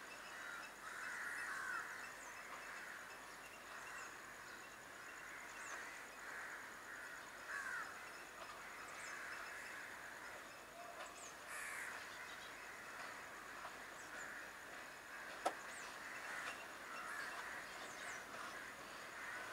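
Crows cawing, faint, several calling over one another, with a few thin high chirps from smaller birds. A single sharp click comes about fifteen seconds in.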